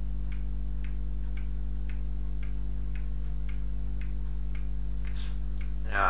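Clock ticking steadily, about two ticks a second, over a constant low electrical hum.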